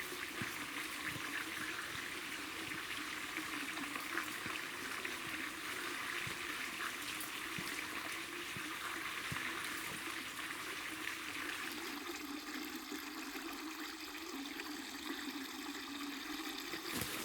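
Steady rush of flowing water, like a small brook or stream running over rocks.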